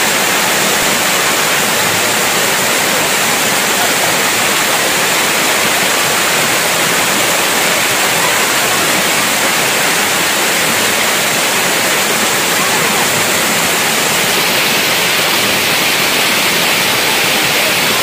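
Water cascading down a stepped rock waterfall: a loud, steady rush of falling and splashing water.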